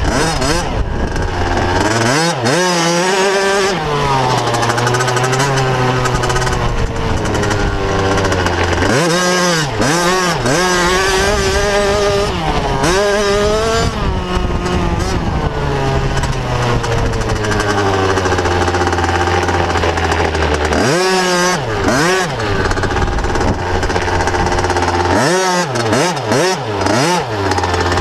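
Motocross bike engine, heard from a camera mounted on the bike, revving up and dropping off again and again as the rider accelerates, shifts and backs off around the dirt track.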